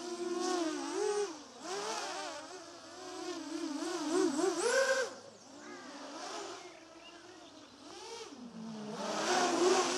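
Lumenier QAV-R racing quadcopter's motors and DAL 5045 bullnose propellers whining in flight. The pitch keeps rising and falling with the throttle, and the sound is loudest about halfway through and again near the end.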